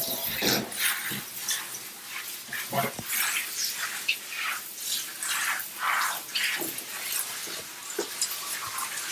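A running bath tap cuts off right at the start. Then Cavalier King Charles spaniels in the bathtub make short, irregular dog sounds among light splashing water.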